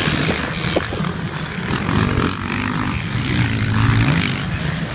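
Motocross dirt bike engines running on a track, their notes rising and falling as the riders rev and back off, with one note sweeping down and back up a little past halfway.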